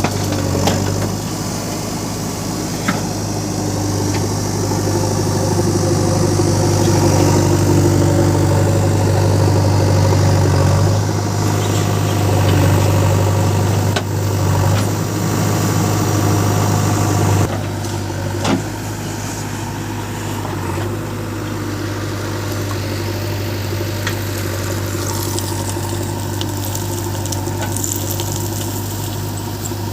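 Heavy diesel engine running, working harder and louder for a stretch before easing back suddenly about two-thirds of the way in, with a few sharp clanks of metal.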